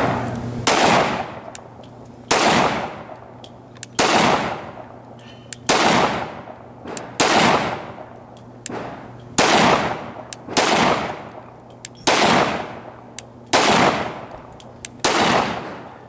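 FN Five-seveN pistol firing 5.7×28mm rounds: about ten single shots at a steady pace of roughly one every second and a half, each sharp crack followed by a short echo.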